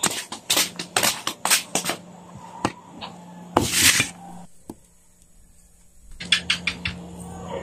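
Metal fork clinking and knocking against a metal basin and the boiled karlang roots in it: a quick run of sharp clicks, a short scraping rustle midway, a quieter pause, then another brief run of clicks.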